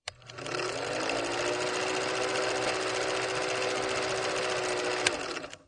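Film projector sound effect: a steady mechanical whirr and clatter with a running hum that climbs slightly as it starts up, with a sharp click at the start and another about five seconds in, then it cuts off.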